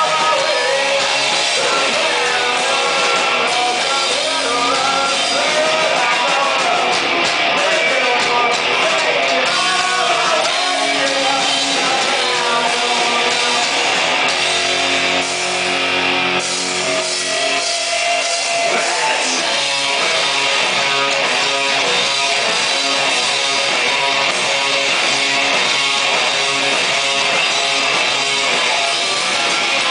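Rock band playing live and loud: electric guitars and a drum kit going without a break.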